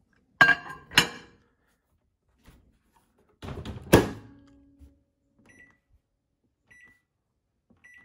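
A bowl clinks twice as it is set on a microwave's glass turntable, then the microwave door shuts with a loud thunk about four seconds in. Three short keypad beeps follow near the end as the cooking time is entered.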